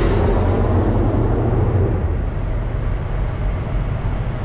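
Heavy diesel truck engine idling, a steady low rumble, with a rushing noise over it that fades about two seconds in.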